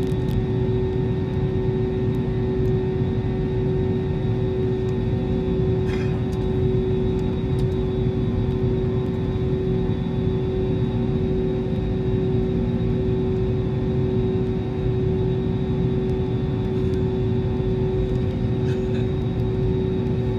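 Cabin noise of a jet airliner taxiing: a steady drone from the engines and the aircraft's systems, with one constant tone over a low hum that stays level throughout. A few faint ticks are heard, one about six seconds in and another near the end.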